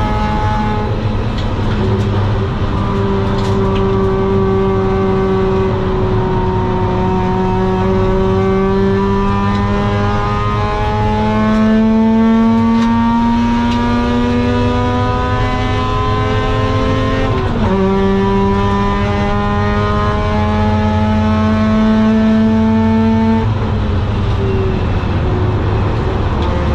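Mazda RX8's 4-port Renesis rotary engine at full throttle through a longtube exhaust with a Borla muffler, its pitch climbing slowly through a long gear. About 17 seconds in it drops sharply at an upshift and climbs again, and about 23 seconds in the note falls away to a lower, rougher sound.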